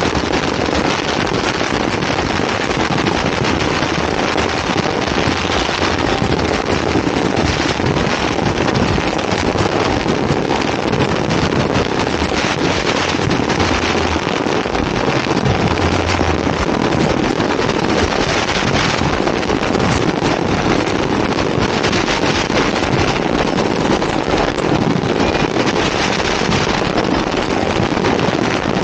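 Dense, unbroken crackle of many firecrackers and fireworks going off at once, steady in loudness.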